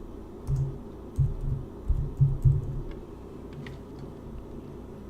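Typing on a computer keyboard: a handful of dull keystroke knocks in the first three seconds, then only a few faint clicks over a steady low hum.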